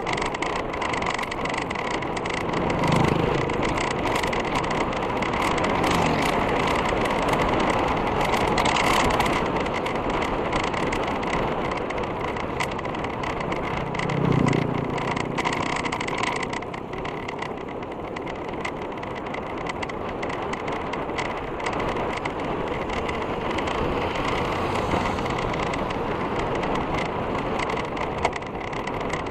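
Steady rushing noise of wind and road on a camera mounted to a moving mountain bike. About fourteen and a half seconds in, an oncoming motorcycle passes with a brief swell in level.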